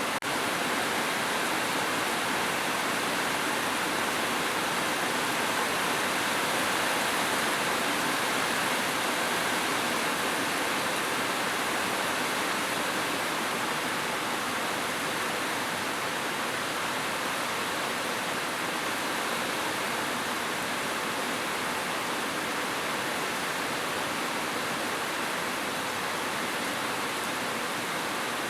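Heavy rain falling steadily on a roof, an even unbroken hiss with no thunder.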